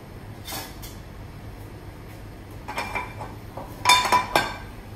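Steel frying pan and metal spatula clanking against the gas burner grate as the pan is handled: several ringing metallic knocks in the second half, the loudest about four seconds in.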